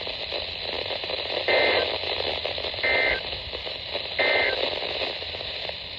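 NOAA Weather Radio SAME end-of-message data tones: three short, raspy digital bursts, each about a third of a second long and roughly a second and a half apart, over steady radio static from the receiver. They close the broadcast of the weekly test and tell receivers that the alert message has ended.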